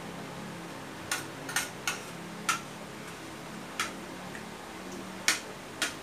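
Metal spoon clinking against ceramic dishes while eating: about seven sharp clicks at irregular intervals, one with a brief ring. A faint low hum lies underneath.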